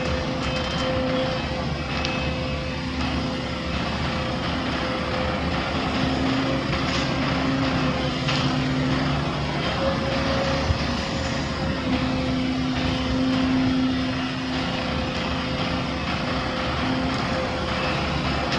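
Heavy machinery's diesel engine running steadily, a constant hum over a broad mechanical din.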